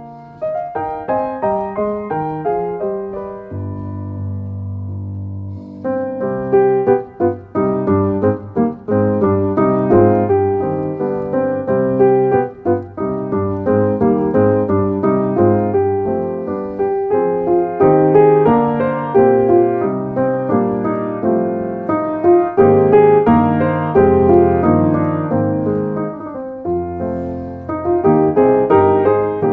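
Background piano music: a steady flow of melody notes over lower chords.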